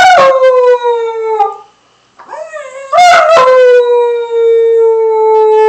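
Border collie–Labrador mix puppy howling twice. The first howl slides down in pitch and fades out after about a second and a half. After a short break, a longer howl wavers at first and then holds one steady note.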